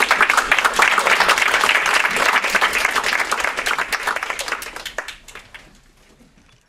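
A small group applauding: many hands clapping densely, then thinning out and fading away about five seconds in.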